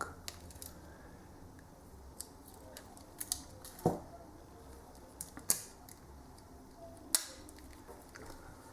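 Scattered light, sharp clicks and taps from a small Victorinox Swiss Army knife being handled, the strongest about four, five and a half and seven seconds in.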